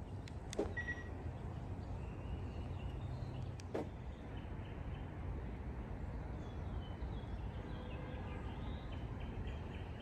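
Steady low outdoor background rumble, with two sharp clicks about half a second and almost four seconds in, and faint short high chirps that come more often near the end.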